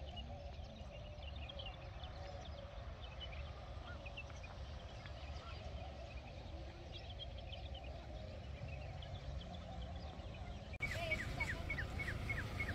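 Wild birds calling: many short high chirps and lower wavering calls over a low rumble of wind. Near the end the sound changes abruptly to a fast run of repeated high falling notes.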